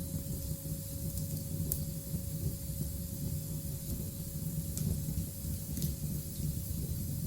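Steady low rumbling noise under a high hiss, with a few faint scattered crackles, from a recording of an element's sound.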